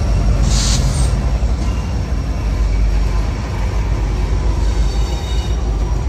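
A train rolling past with a steady, heavy low rumble. There is a brief hiss about half a second in, and faint wheel squeal near the end.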